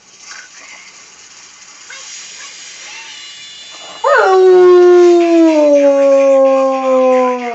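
Rottweiler howling: one long howl that starts abruptly about four seconds in, rises quickly and then slides slowly downward in pitch until it trails off at the end, preceded by fainter sounds.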